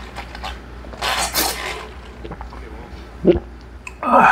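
Close-miked eating sounds: chewing, a short swallow a little after three seconds, then a loud sip of cola from a plastic cup near the end.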